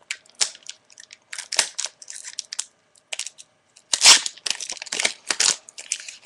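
A Magic: The Gathering booster pack's crinkly wrapper being torn open and crumpled by hand. The crackles come in short, sharp bursts, loudest about four seconds in.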